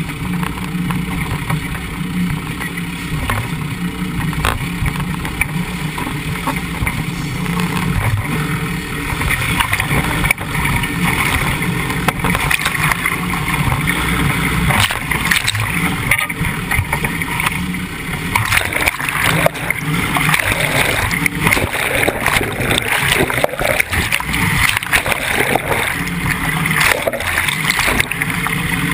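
Land Rover Defender 90 wading through a shallow river: its engine runs under a steady rush of water against the low-mounted camera. In the second half the water splashes and gurgles louder and more unevenly as the wash surges over the camera.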